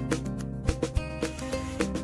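Background music: a melody over a regular beat.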